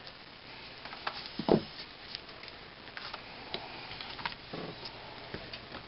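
Scattered light clicks and knocks as a pine board and hand tools are handled on a tabletop, with one fuller knock about one and a half seconds in.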